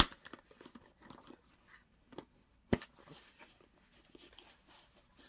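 A sharp click of the plastic tub, then soft rustling and tugging as a pre-moistened Tub O' Towels wipe is worked out of its canister, with a second sharp click nearly three seconds in.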